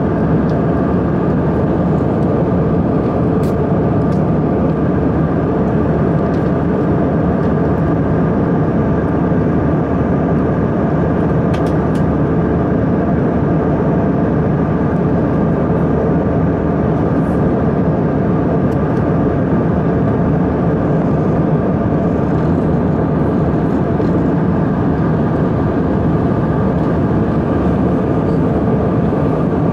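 Passenger aircraft cabin noise in flight: a loud, steady rush of engines and airflow with a few even hums, unchanging throughout.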